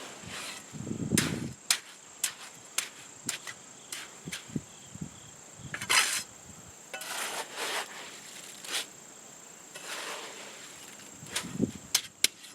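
Hand tools working freshly mixed concrete into a footer: a string of sharp knocks and clicks with a few short scraping swishes. A steady high insect drone runs underneath.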